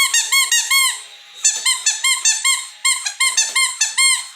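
Squeaky toy ball squeezed rapidly over and over: a run of short high squeaks, about four or five a second, each rising and falling in pitch, with brief pauses about a second in and again near the end.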